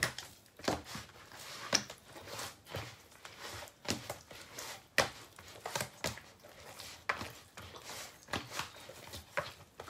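Soft pandesal bread dough being kneaded by hand in a plastic basin: irregular squishing and soft slaps of the dough being pressed and folded, with a few sharper knocks against the bowl.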